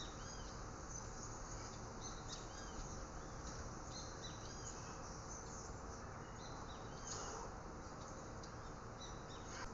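Small birds chirping: short, high, rising-and-falling calls repeated irregularly over a steady background hiss.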